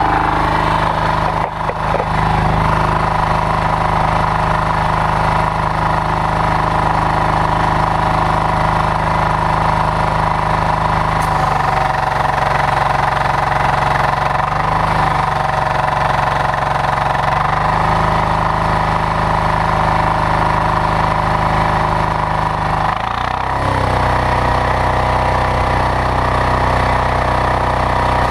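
Loncin diesel engine of a pressure washer running steadily at about three-quarter revs just after a key start. Its low note shifts slightly about 12 seconds in and changes again about 23 seconds in.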